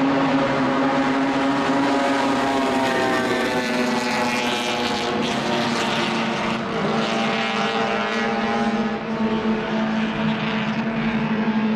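1960s racing car engine running steadily, its note holding a fairly constant pitch, growing harsher and brighter for a few seconds in the middle.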